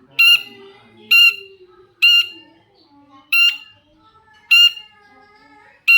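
Long-tailed shrike (cendet) giving harsh, scolding squawks, six short calls about once a second. This is the kind of call used as a lure to provoke other shrikes into answering.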